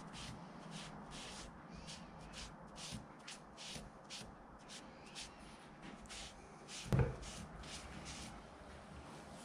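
Quick, irregular swishing strokes of a brush working finish onto a turned wooden table leg, about two or three a second, with a single thump about seven seconds in.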